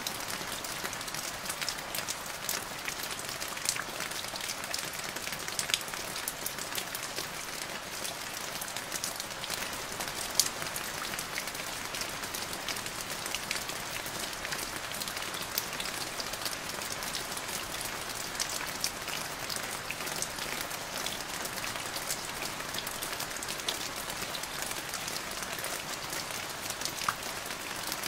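Steady rain falling on a puddle: a constant even hiss dotted with many small, sharp drop splashes.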